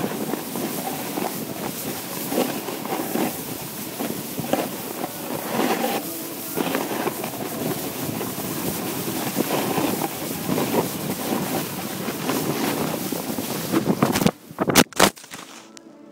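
Wind rushing over the phone's microphone together with the scraping hiss of riding down packed snow. About fourteen seconds in the rush cuts off, and a few sharp knocks follow as the phone falls into the snow.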